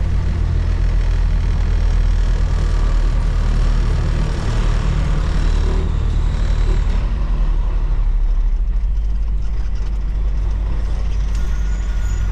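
Heavy truck's diesel engine running, heard from inside the cab as the truck moves slowly; the engine note settles lower about seven seconds in.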